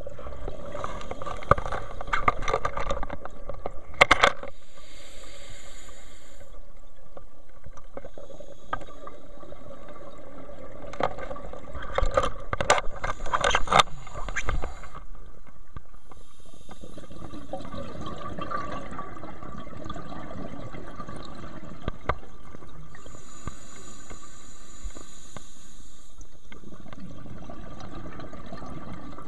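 Scuba diver breathing through a regulator underwater. There are two bubbling, crackling exhalations, one from about a second in and one near the middle, and hissing inhalations between and after them, over a steady faint hum.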